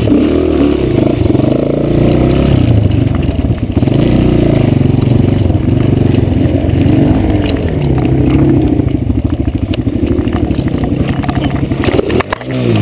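250cc off-road motorbike engine revving up and down at low speed over a rough trail, the note rising and falling every couple of seconds. Near the end the sound drops and breaks briefly as the bike goes down in a crash.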